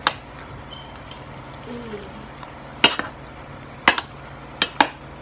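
Metal slotted spoon stirring thick, creamy penne in a stainless steel pot, with five sharp clinks of the spoon against the pot, two close together near the end. Under it, a washing machine runs with a steady hum.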